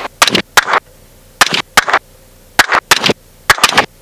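Rifle shots fired from a helicopter at hogs: about nine sharp cracks in quick, irregular succession, several of them in pairs.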